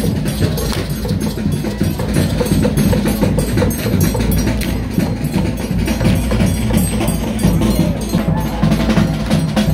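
Loud carnival street music: drums and percussion beating fast and evenly, about four strokes a second, over a heavy, steady bass.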